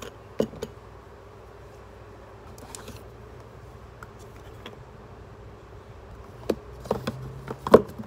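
Skincare bottles and caps being handled: a few small clicks and taps, two early on and a cluster near the end with the loudest last, over a steady low hum.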